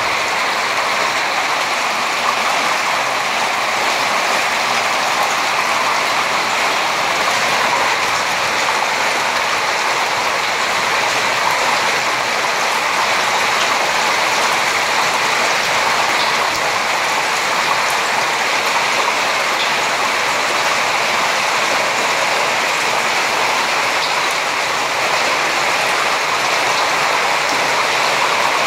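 Heavy hailstorm: hailstones pelting the ground and surfaces below in a dense, steady, unbroken clatter.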